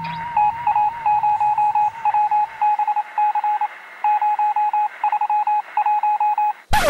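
Quick runs of short electronic beeps, like telephone keypad tones, on a soundtrack. Near the end comes a sudden loud sound that sweeps downward in pitch.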